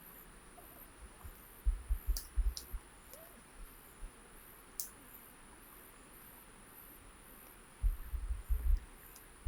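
Insects in the forest giving a steady, high, evenly pulsing drone, with two clusters of low thumps, about two seconds in and again near the end, and a few sharp clicks.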